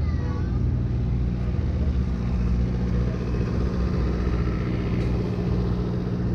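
City street traffic: a motor vehicle engine running steadily close by, a continuous low rumble and hum.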